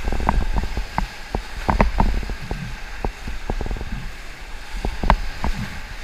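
Whitewater rapids rushing under a paddled raft, with irregular sharp splashes and knocks as paddle blades dig into the water, over a steady low rumble of wind on the microphone.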